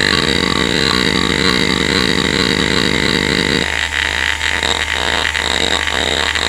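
Western Digital Caviar 31200 hard drive's head actuator seeking under the hdmotion test, first as a rapid continuous chatter, then, a little past halfway, as separate seek clicks about four a second, over the steady whine of the spinning drive.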